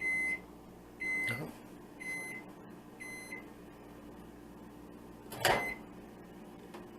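Microwave oven's end-of-cycle alert: four short, even high beeps about a second apart, signalling that cooking is finished. About five and a half seconds in there is a single loud clunk, followed by a brief beep.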